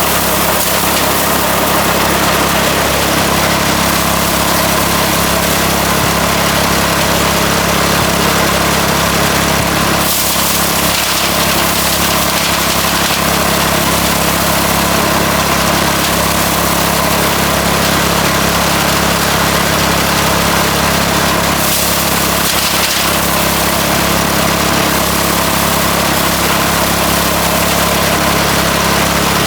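Mini rice threshing machine running steadily, its motor drone and the threshing noise continuous and unchanging.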